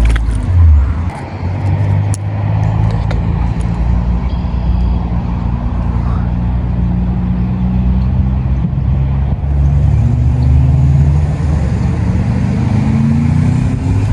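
An engine running steadily, a low hum whose pitch drifts and rises a little near the end.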